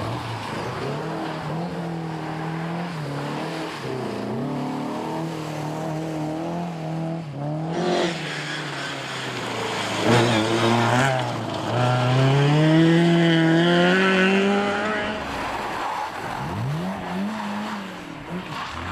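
Historic rally car engines revving hard as cars accelerate past, the pitch climbing through each gear and dropping at each change. The loudest, longest climb comes about ten to fifteen seconds in, and another car rises and falls in pitch near the end.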